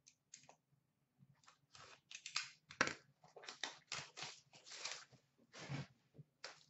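Wrappers of 2015-16 Upper Deck Series 1 hockey card packs crinkling and tearing as packs are handled and ripped open, a quick run of short rustles and rips.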